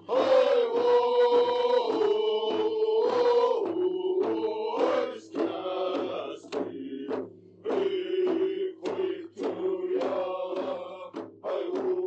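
Background music with chanted singing in held, drawn-out phrases.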